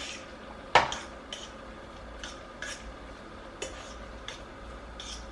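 A utensil stirring egg salad in a bowl, clinking and scraping against the bowl in irregular knocks; the loudest clink comes about a second in.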